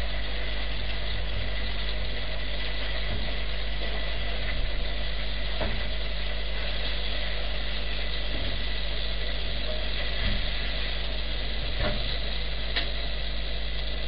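Pork ribs frying in a pan on the stove: a steady sizzle over a constant low hum, with a few light clicks of a utensil against the pan.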